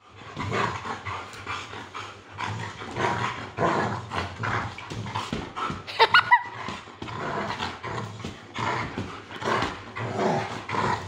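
A shepherd-type dog growling in play, in rough bursts about twice a second, with one short high yelp about six seconds in.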